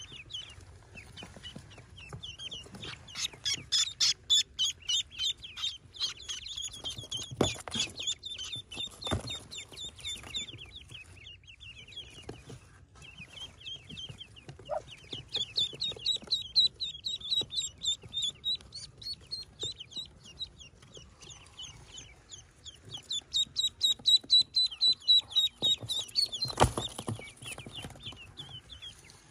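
Newly hatched ducklings peeping: fast runs of short, high notes that swell in three louder spells. A few brief knocks come in between.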